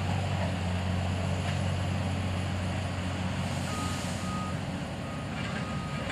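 Cat 568 LL log loader's diesel engine running steadily with a deep hum as the machine swings. A little past halfway its alarm starts beeping, a high tone sounding about four times.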